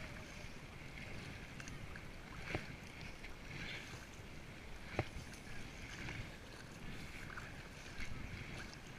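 Double-bladed kayak paddle dipping into the sea on alternate sides about once a second, each stroke a splash with spray off the blade, over a low wind rumble on the microphone. Two sharp clicks stand out, the louder about five seconds in.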